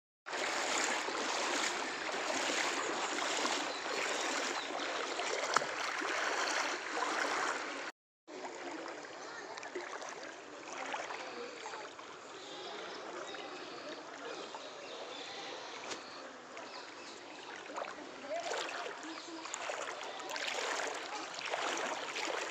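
Floodwater flowing and rushing, a steady noise of moving water, louder in the first few seconds and cut off briefly about eight seconds in.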